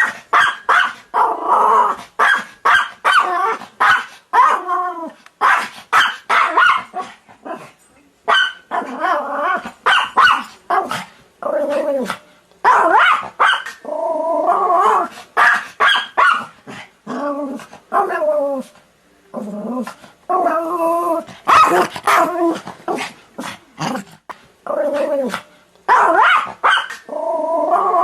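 Dog barking over and over in quick runs of barks with short pauses between them; some barks are drawn out into longer calls that bend in pitch.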